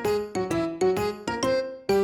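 Light, playful background music: a quick run of bright keyboard notes, several a second, each fading fast.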